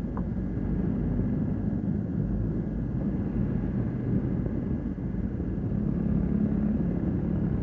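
Steady low hum and rumble with no distinct events: the background noise running through the soundtrack of an old Super 8 film transfer.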